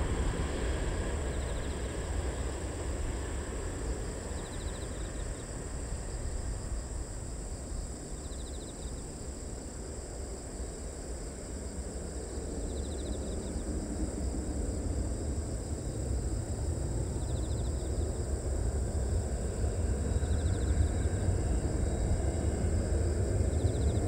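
Distant Boeing 737-800 jet engines at takeoff power, a low steady rumble that eases in the middle and swells again near the end as the airliner climbs away. A short high chirp, like an insect, repeats every few seconds.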